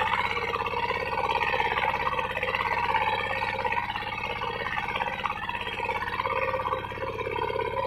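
Single-cylinder diesel engine of a Quick two-wheel hand tractor running steadily under load while its rotary tiller churns the soil.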